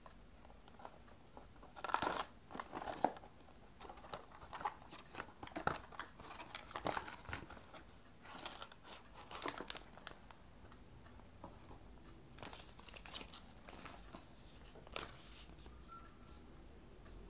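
Handling noises from unpacking a toy building-block set: a small cardboard box being opened, a clear plastic bag of pieces crinkling, and a paper instruction sheet unfolding. The irregular rustles and taps start about two seconds in and die down near the end.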